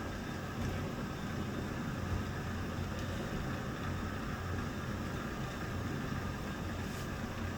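HO scale model train running: a steady hum from the locomotives' motors and the cars rolling along the track.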